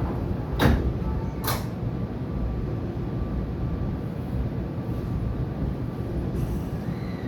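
Doors of a Tobu 80000 series train shutting: two sharp knocks under a second apart over the steady rumble of the train, with a faint falling tone near the end.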